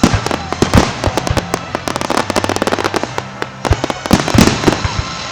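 Fireworks going off in a dense barrage: rapid crackling and popping with several heavy bangs among them, dying away near the end.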